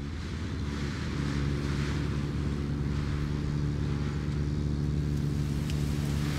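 A vehicle engine sound effect running steadily: a low, even drone with a hiss over it that gets a little louder about a second in.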